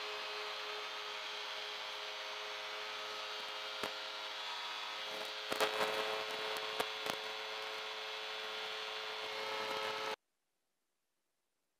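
Light aircraft engine running steadily at takeoff power through the takeoff roll and climb-out, heard from a camera mounted outside on the wing strut. A few sharp knocks come around the middle, and the sound cuts off abruptly near the end.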